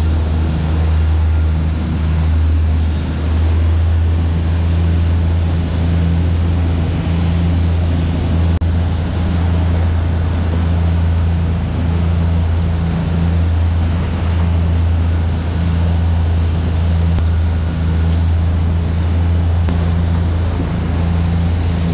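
A sport-fishing boat's engines running steadily while trolling, a deep, even drone, with the rush of the wake and wind behind it.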